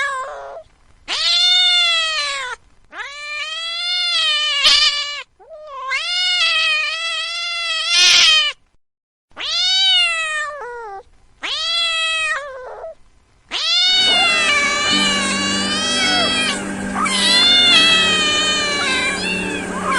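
A domestic cat meowing repeatedly: long drawn-out meows, each rising and then falling in pitch, with short pauses between them. About fourteen seconds in, the meows come closer together over a steady humming background.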